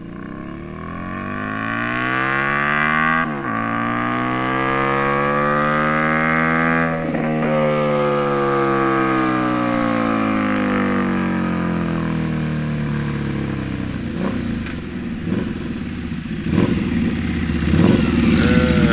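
Harley-Davidson Night Rod Special V-twin with a TAB Performance exhaust accelerating hard, its note rising and broken by two quick gear changes about three and seven seconds in. The pitch then slowly falls and the engine fades away as the bike goes past and off into the distance, with a few knocks near the end.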